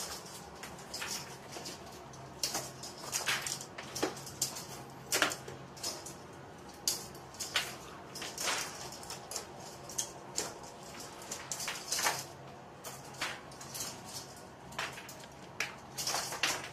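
Metal spring clamps clicking and clattering against each other as they are handled and set down on a bench, in irregular sharp clicks, over a low steady hum.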